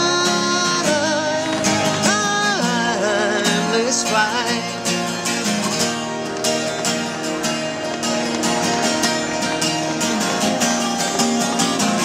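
A man singing to a strummed twelve-string acoustic guitar, with a long wavering held note about two seconds in.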